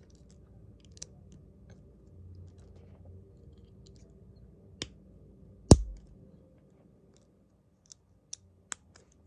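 Small plastic clicks and taps of LEGO pieces being handled and snapped together, scattered and irregular, with one much louder knock just past the middle.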